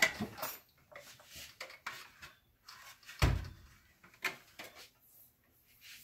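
A few clinks and knocks of kitchen cookware being handled, with one louder thump about three seconds in.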